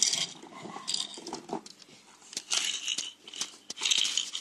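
A baby's plastic rattle toy being shaken in several short bursts.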